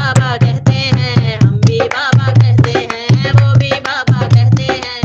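Hindi bhajan-style song: a voice singing over a steady hand-drum beat with a deep, repeated bass stroke.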